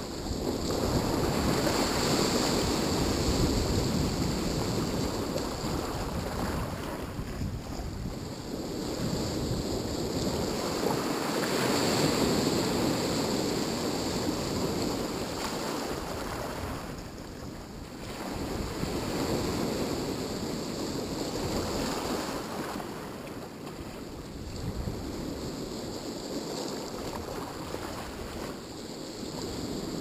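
Black Sea surf washing onto the shore, a steady rushing that swells and fades every several seconds, with wind buffeting the microphone.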